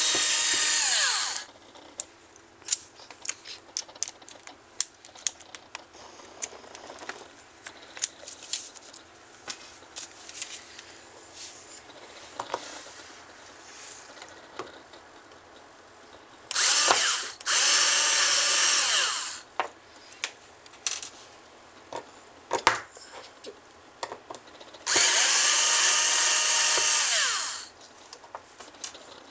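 Power drill unscrewing hard drive screws in short runs: one run ending about a second in, two short ones past the middle, and a longer one near the end, each falling in pitch as it winds down. Between the runs come light clicks and knocks of the screws and drive being handled.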